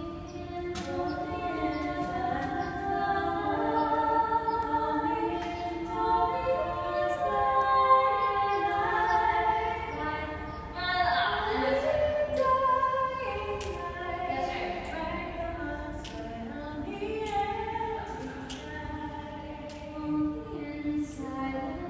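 Voices singing long, held notes that overlap and change pitch slowly, echoing off the walls of a concrete tunnel.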